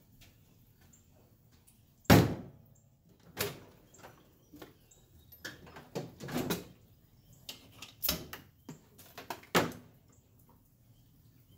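A series of irregular knocks and clunks, the loudest about two seconds in, with several more spread through the rest.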